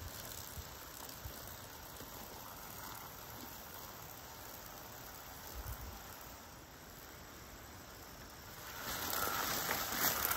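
Faint steady outdoor background, then from about nine seconds in, footsteps rustling through leafy buckwheat plants, growing louder as they come close.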